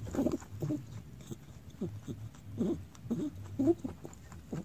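Domestic rabbit clucking while it eats leafy greens: a run of short clucks, a few a second. Clucking is a happy, content sound.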